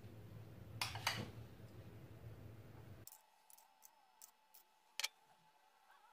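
Spatula clicking and tapping as pastry cream is scooped from a glass bowl and dabbed onto dough: two louder knocks about a second in, a few light ticks, and a sharp click about five seconds in. A low hum underneath cuts off about three seconds in.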